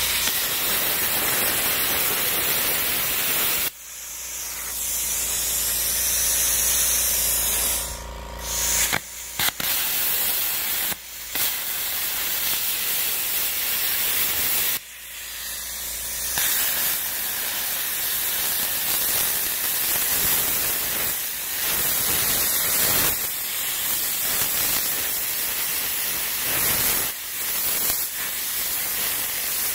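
Plasma cutter torch cutting steel plate: a loud, steady hiss of the air-plasma arc, with several short breaks where the level drops.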